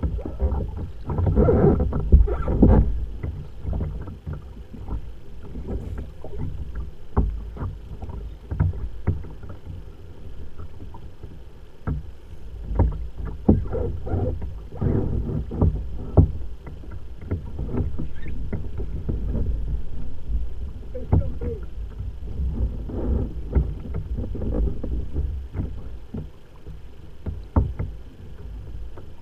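Sea water lapping and slapping against a kayak hull close to the microphone: a low, uneven rumble broken by frequent irregular splashy knocks.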